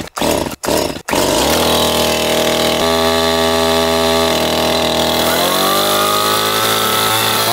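Stihl two-stroke chainsaw pull-started with a few quick tugs on the starter cord, catching about a second in and settling to a steady idle. Near the end it is throttled up and its pitch rises.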